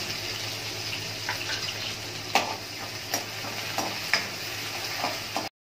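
Crushed ginger-garlic paste and cumin seeds sizzling in hot oil in a kadhai, stirred with a spoon that clicks against the pan about five times in the second half. The sound cuts off suddenly near the end.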